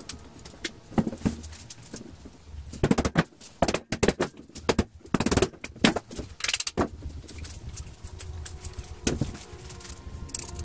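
Metal parts of an old hand drill clicking, clinking and knocking as it is handled and its gear and housing are fitted together. The clicks are scattered, and come thickest in the middle few seconds.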